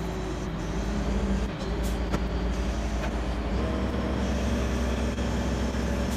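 Mobile crane's diesel engine running under load while hoisting a silo, a steady low hum whose pitch steps up a little about three and a half seconds in. A few sharp clicks sound over it around the middle.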